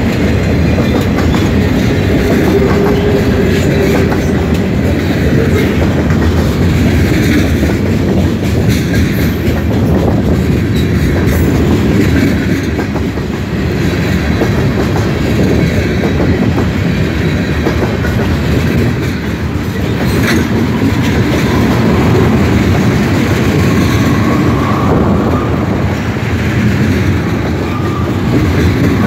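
Freight cars rolling past close by: a steady rumble and clatter of steel wheels running over the rails.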